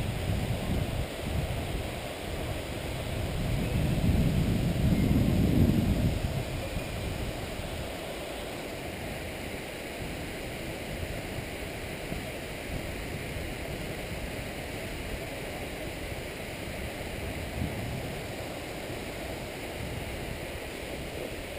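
Wind buffeting a small action-camera microphone, with gusts strongest about three to six seconds in, over a steady rushing noise.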